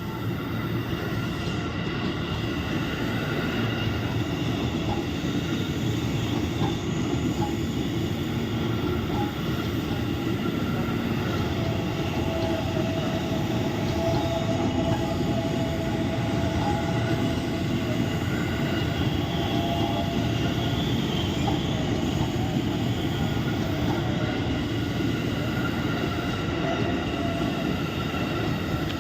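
Railway train running past on the rails: a steady rumble of wheels on track with thin, high squealing tones riding over it.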